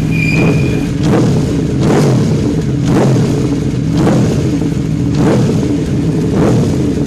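Motor scooter engine running, with a swell in the sound about once a second.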